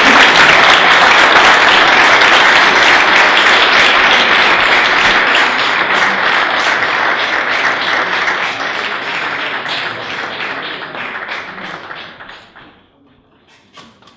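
Audience applauding: a dense, sustained clapping that thins out and dies away about twelve or thirteen seconds in, followed by a couple of faint knocks.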